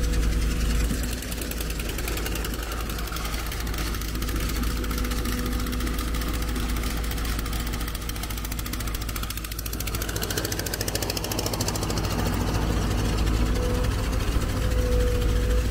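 Engine of heavy machinery running steadily with a fast, even beat. A steady whine drops out about a second in and comes back near the end.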